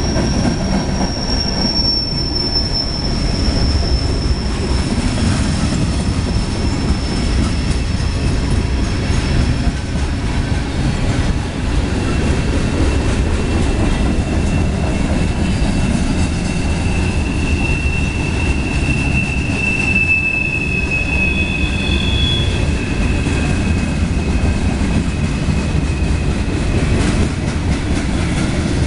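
Freight cars of a CSX mixed freight train rolling past: a steady, loud rumble of steel wheels on rail, with a thin, high wheel squeal over the first third and another, lower squeal about two-thirds of the way through.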